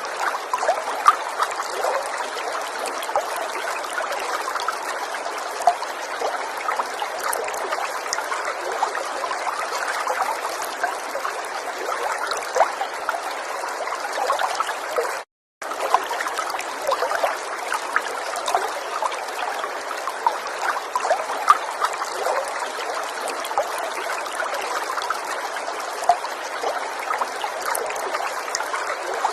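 River water flowing and trickling steadily, dotted with small splashes, light rather than a deep rush. The sound cuts out completely for a split second about halfway through.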